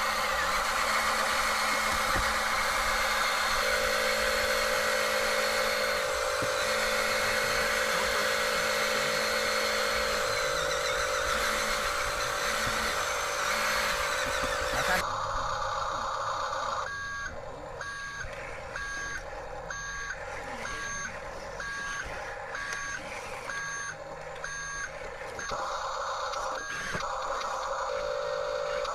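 Remote-control toy construction vehicle running, with a steady whir of small electric motors and gears, then from about halfway through an electronic reversing beep repeating about once a second.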